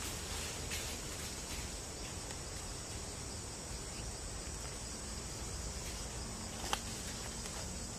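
Steady high-pitched insect chorus over a low rumble, with one sharp click near the end.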